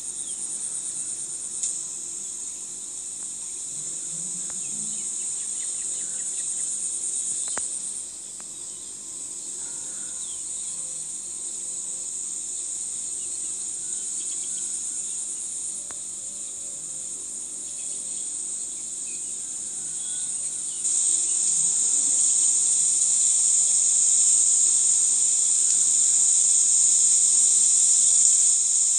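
Insects singing in the grass: a steady high-pitched shrill chorus that grows louder about two thirds of the way through.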